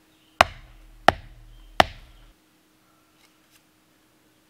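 A thin wooden stake being struck three times, about two-thirds of a second apart, to drive it a short way into clay ground.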